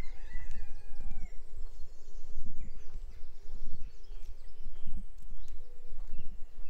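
Birds calling and singing outdoors, with one longer, drawn-out call in the first second or so, over a steady low rumble.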